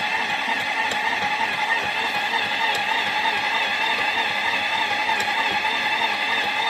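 Ooni Halo Pro spiral mixer running with a steady motor whine, broken by an occasional sharp click or knock, three times. The knock is the unexplained noise the owner is asking about.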